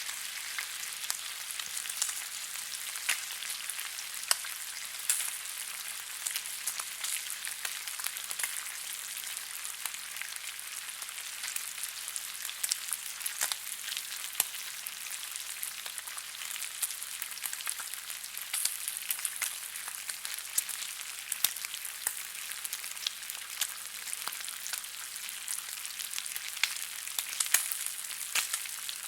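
Bacon frying in a pan: a steady high sizzle of hot grease with frequent sharp crackles and pops.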